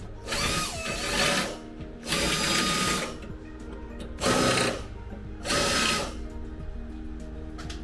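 A power tool run in four short bursts, the first two about a second long and the last two about half a second, over background music.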